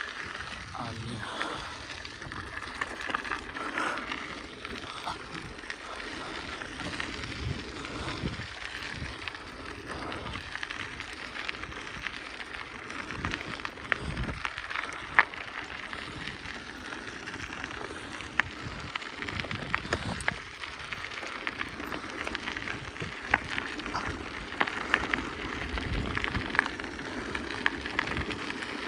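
A 2004 BMX being ridden along a road: a steady rolling noise from the tyres on the road surface, with many small clicks and rattles from the bike. The sharpest click comes about halfway through.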